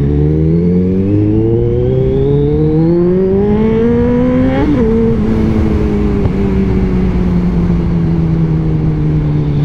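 Kawasaki Z1000's inline-four engine through a single exhaust, revving up steadily under acceleration for about four and a half seconds, dropping sharply at an upshift, then running on at a steady, slowly easing pitch.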